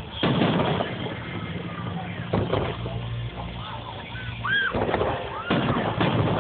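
Fireworks bursting several times, a second or two apart at irregular intervals, over a steady low hum.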